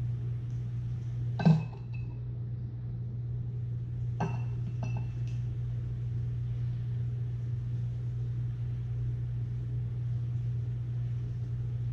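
Meat injector clinking against a metal sheet pan as a brisket is injected: one sharp clink with a brief ring about a second and a half in, then two lighter ringing clinks around four to five seconds in, over a steady low hum.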